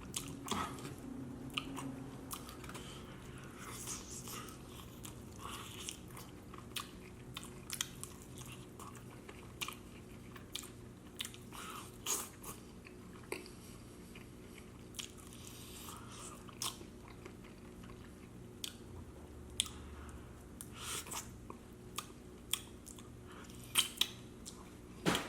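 A person chewing and biting into Wingstop chicken wings close to the microphone, with irregular wet smacking clicks throughout.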